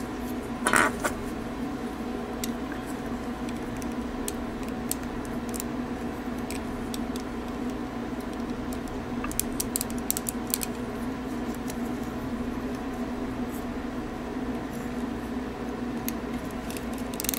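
Scattered small clicks and scrapes of hard plastic model-kit parts on a fiddler crab figure being handled and pressed, over a steady low hum.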